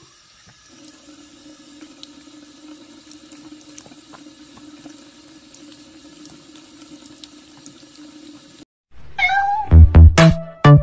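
Bathroom sink tap running in a thin stream: a steady hiss with a low hum and a few faint ticks. About nine seconds in it cuts off and loud electronic music with heavy beats takes over.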